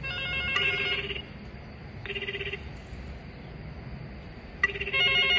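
Desk telephone's electronic ringer sounding in three short warbling bursts, the incoming call ringing through once the recorder's spoken warning has played.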